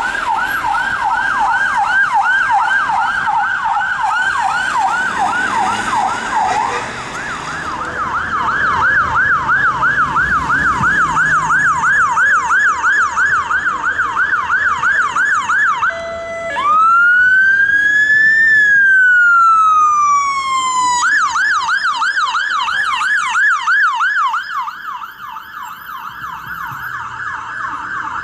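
Electronic emergency-vehicle sirens on a fast yelp, about three sweeps a second. After a cut about seven seconds in, an ambulance siren yelps. Past the middle it switches once to a slow wail, rising for about two seconds and falling for about two and a half, then goes back to yelp.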